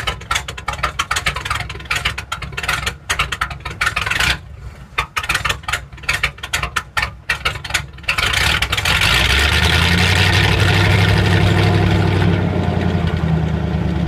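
Exhaust of a 1988 Dodge W100 pickup's engine, heard at the tailpipe through its new exhaust system. The sound is choppy and uneven for the first half. From about eight seconds in it becomes a steady, louder exhaust note, which eases off slightly near the end.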